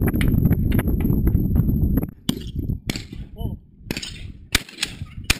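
Camera being handled and turned, a loud rumble with quick knocks for about two seconds that then drops away. After it, a few sharp, short clicks.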